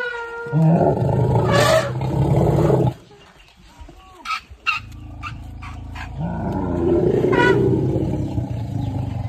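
Asian elephants rumbling and roaring in greeting as they crowd around a man they know. There are two loud, long, low calls, one starting about half a second in and stopping near the three-second mark, the other building from about six seconds in. A few sharp clicks come in the quieter gap between them.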